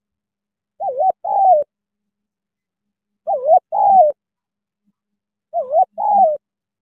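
Spotted dove cooing: three calls about two and a half seconds apart. Each call is a short wavering coo followed by a longer coo that falls away at the end.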